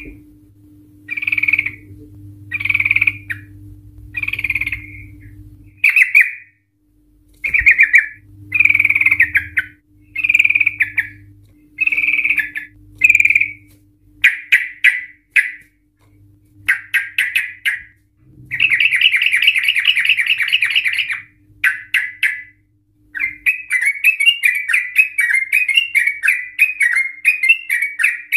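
Yellow-vented bulbul (trucukan) singing loudly: short bubbly phrases about once a second, then clusters of quick notes, a long rattling trill about two thirds through, and near the end a fast, continuous rolling warble, the long 'ropel' trill prized in this bird. A faint steady low hum runs beneath.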